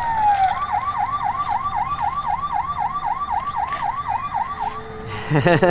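Electronic siren of a battery-powered toy emergency vehicle, set off by its button: a quick rising-and-falling yelp repeating about four times a second, stopping shortly before the end. A louder, different burst of sound follows near the end.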